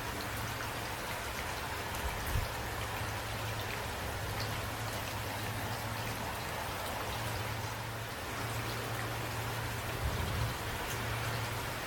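Steady rain with single drops striking a surface, over a low steady hum. Two brief low thumps stand out, about two seconds in and again near the end.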